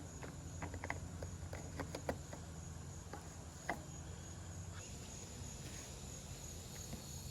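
A steady high chirring of insects under a low steady hum, with scattered light clicks and taps, mostly in the first four seconds, as small motorcycle handlebar parts are fitted by hand.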